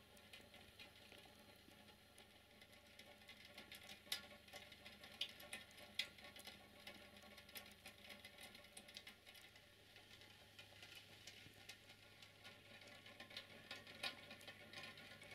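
Near silence: faint background ambience with scattered soft ticks, a few a little louder.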